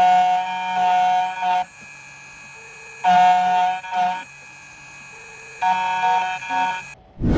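Background music: a sustained synth chord phrase that repeats three times, with quieter gaps between, and a sudden loud hit at the very end.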